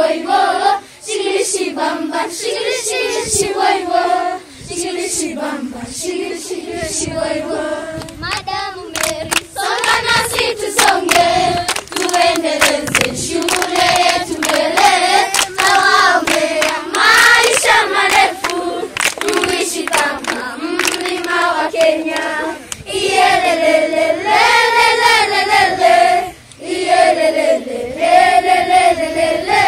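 A group of schoolchildren singing a song together in Swahili, with hand claps cracking through the singing.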